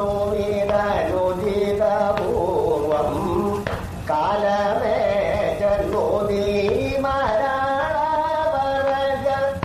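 A male Kathakali singer sings a padam in raga Natakurinji, in long held and ornamented phrases over a steady low drone.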